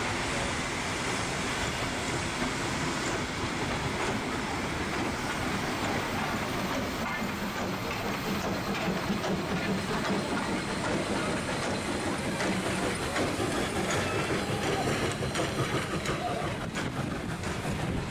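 A steam-hauled train of passenger carriages rolling slowly through the station, wheels clicking over the rail joints, with wind buffeting the microphone.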